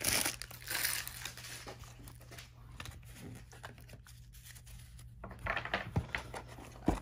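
Crinkling and tearing of a foil trading-card pack wrapper being opened. It is loudest in the first second, picks up again near the end, and there are two short knocks at the close.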